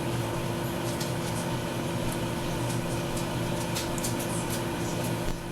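Microwave oven running with a steady hum, while foaming cleanser heating inside gives off scattered faint crackles and pops.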